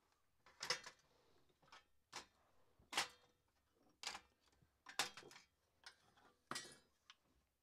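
Hand tools being set down and dropped into a metal tray on a wooden workbench: a string of short knocks and clicks at irregular intervals.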